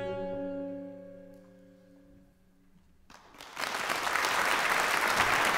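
The final held chord of a jazz quartet (saxophone, piano and double bass) rings and fades almost to silence, then audience applause breaks out about three seconds in and builds to a steady level.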